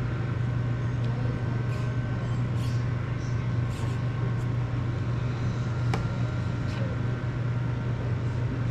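A steady low hum throughout, with several short hisses of solder flux sizzling under a soldering iron as power leads are soldered to a drone's flight controller.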